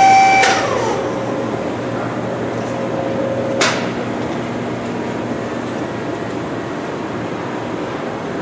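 Champion single-arm sigma-blade mixer running: its high machine whine drops in pitch about half a second in and settles to a lower steady tone, which stops with a sharp clunk about three and a half seconds in. An even mechanical hum carries on after the clunk.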